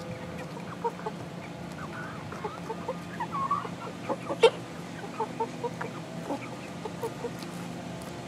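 A flock of 11-week-old chickens clucking in short, scattered calls, with one sharp click about halfway through.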